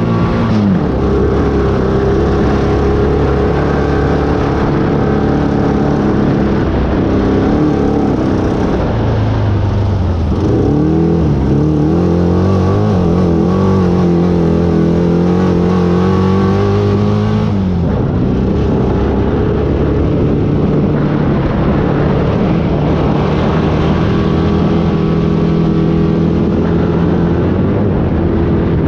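Off-road race vehicle's engine running hard under a steady rush of driving noise. Its pitch falls and climbs again about a third of the way in as the throttle is lifted and reapplied, and the note changes abruptly a little past halfway.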